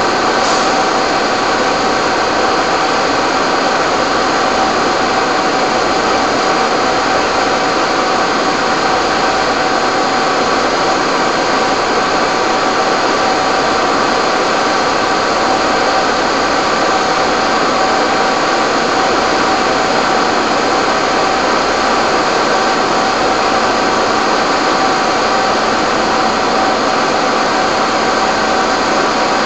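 Fire engines' engines and pumps running steadily under load as they supply the hose streams: a loud, unchanging machine noise with several held tones.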